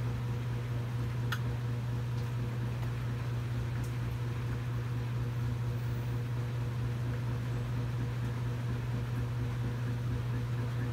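Steady low mechanical hum, with a faint click about a second in.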